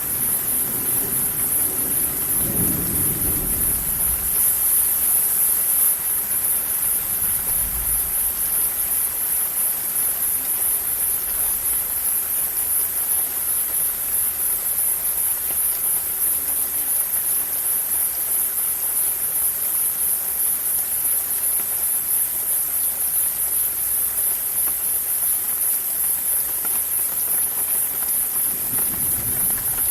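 Steady rain falling in a thunderstorm, a continuous hiss with a strong high-pitched edge. A thunder rumble dies away over the first few seconds, and another low rumble begins to build near the end.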